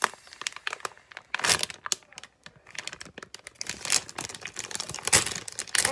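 Crinkly plastic packaging bag of a squishy toy crackling and rustling as it is handled, in irregular bursts that are loudest about a second and a half in and again about five seconds in.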